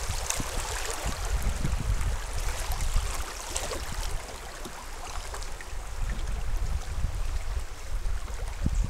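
River water rushing and splashing over shallow riffles close around a canoe's bow, a steady hiss with a low rumble underneath and small scattered splashes.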